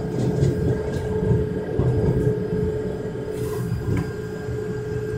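S-Bahn electric train running slowly, heard from inside the carriage: a steady pitched hum from the drive over the low rumble of the wheels on the track.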